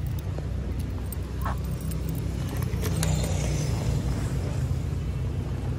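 A motor vehicle's engine running steadily with a low rumble, heard while riding along a road.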